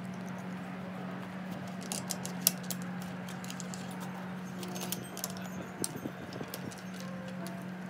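Scattered sharp metallic clicks and clinks of hand tools working on BMX cranks, over a steady low hum.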